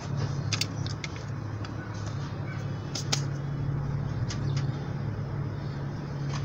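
A steady low hum, with a few short sharp clicks scattered over it, two of them close together about half a second in and two more about three seconds in.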